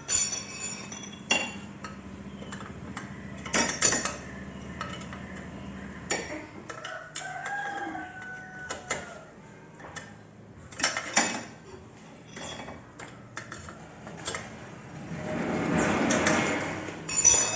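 Metal exhaust parts clinking and knocking as a racing silencer and adapter are handled and fitted, with several sharp clanks. A rooster crows in the background about midway.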